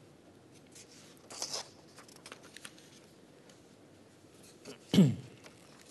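A pause in a man's talk heard through his microphone: faint room tone, a short breathy rustle about a second and a half in, and near the end a brief vocal sound from him that falls steeply in pitch.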